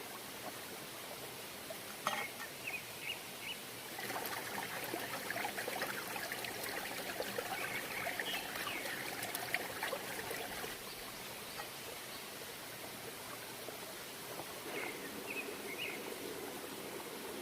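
Stream water running steadily, with short high chirps about two seconds in and again near the end.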